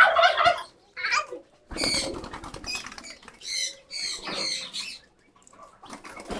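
Pigeons making high, squeaky calls in several short bursts.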